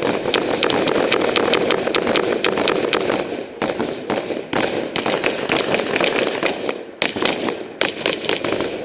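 Sustained small-arms gunfire: dozens of sharp rifle shots in quick, irregular succession, with brief lulls a few times.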